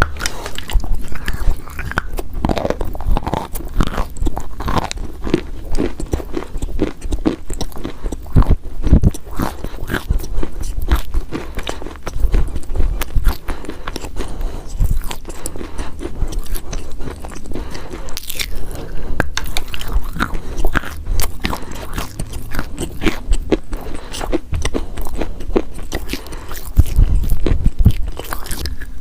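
Crunchy chalk being bitten and chewed close to the microphone: a continuous run of sharp, irregular crunches and crackles.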